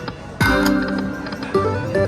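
Slot machine game music and sound effects: a sudden pitched jingle with plucked-string tones about half a second in, and another short chime near the end.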